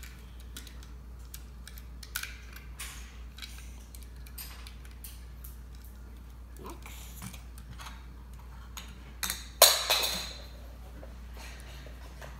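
Small plastic clicks and taps of LEGO bricks on a toy monster truck being handled and pried apart, with a louder plastic clatter a little over nine seconds in.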